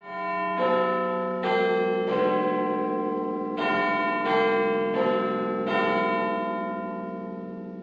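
Church bells striking a chime: eight strokes in two groups of four, each stroke left ringing and the sound dying away after the last one.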